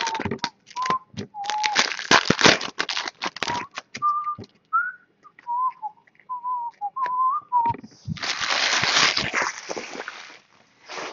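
A person whistling a wandering tune while trading cards are handled. Quick snaps and taps of cards fill the first few seconds, and a denser rustle lasts about two seconds near the end.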